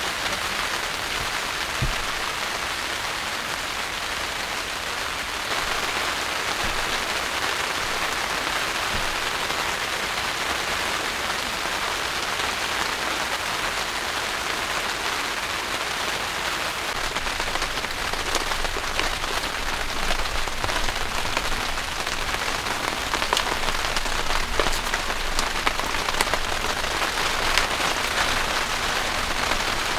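Heavy rain falling steadily on the tent, heard from inside, with sharp individual drop ticks growing more frequent in the second half.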